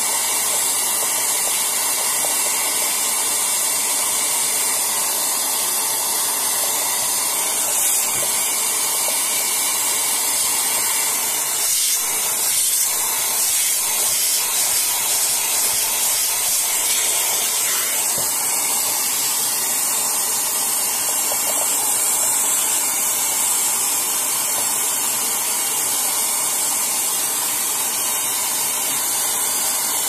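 Vacuum cleaner running steadily, a hissing rush of air at its hose nozzle as it sucks dust off a desktop computer's case fan.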